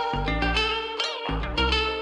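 Background music, the instrumental intro of a rap track: a plucked-string melody over deep bass notes that drop out briefly and come back in.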